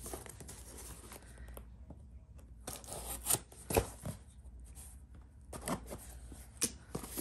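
Cardboard shipping box being opened by hand: packing tape and cardboard flaps tearing and rustling, in two spells of ripping and handling, about three seconds in and again near the end.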